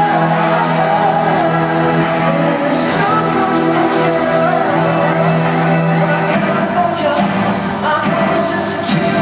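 Live pop band and male lead singer playing through an arena sound system, heard from the audience, with held chords under the vocal line.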